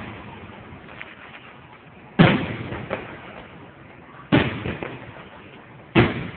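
Aerial firework shells bursting overhead: three loud booms about two seconds apart, each trailing off over a second or so, with a few fainter pops in between.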